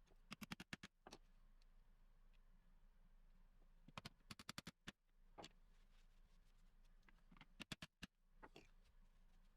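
Faint sharp clicks and light taps, coming in quick runs of several: just after the start, around four seconds in and again near eight seconds, over a low steady hum.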